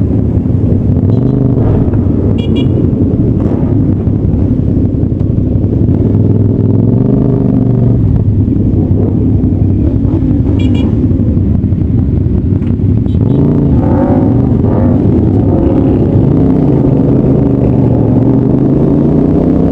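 CF Moto 450SR-S parallel-twin engine running under way, its pitch rising and falling with the throttle and climbing steadily near the end as the bike accelerates. A few short high chirps sound briefly over it.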